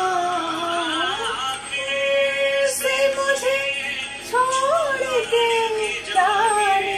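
A woman singing a Hindi ghazal unaccompanied: slow, long-held notes that slide and waver in pitch, with a short break just before the middle.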